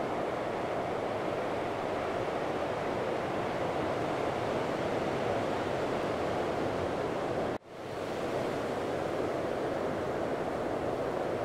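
Ocean surf breaking steadily on a sandy beach, a continuous even wash of noise. About two-thirds of the way in the sound cuts out abruptly and fades back up within half a second.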